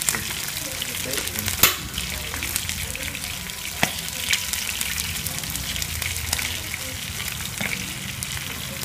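A whole skinned field rat frying in hot oil in a nonstick pan: a steady sizzle with scattered sharp pops, the loudest about one and a half seconds in.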